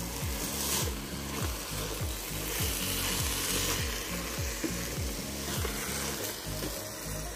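Ground sirloin and minced vegetables sizzling in a hot pan while a spatula stirs them, in a regular run of stirring strokes about two to three a second.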